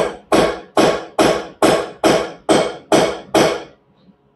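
Hammer striking a steel punch held against the seized inner wheel-bearing race on a front spindle: about nine sharp, ringing metal blows, a little over two a second, with a short pause near the end. The blows are driving off the stuck remains of the failed bearing.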